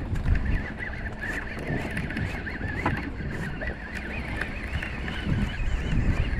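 Birds calling in a continuous high, warbling chatter over a steady low rumble.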